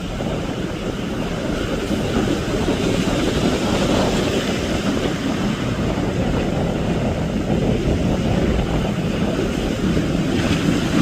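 Sea Hunt motorboat running steadily under way, with its engine and wind buffeting the microphone.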